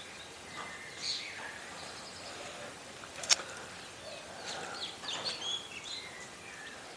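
Quiet outdoor garden ambience with scattered short bird chirps, and one sharp click a little over three seconds in.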